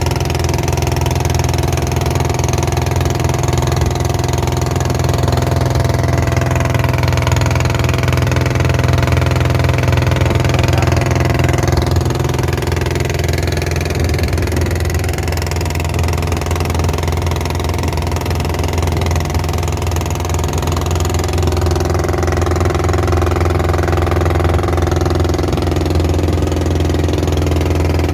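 Long-tail boat's engine running steadily under way: a loud, continuous engine sound that holds one pitch throughout.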